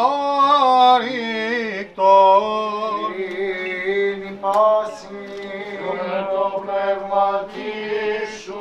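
Byzantine chant: a male voice sings a winding, ornamented melody over a steady held drone note (the ison).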